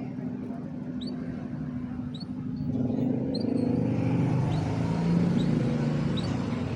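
Canary giving short rising chirps, one every half second to a second, over a low rumble that grows louder about three seconds in.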